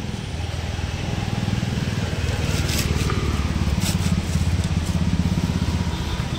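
Low rumble of road traffic, swelling as a motor vehicle passes close by and easing off near the end. Faint scraping as the fried spiral potato is pushed off its skewer onto a foil plate.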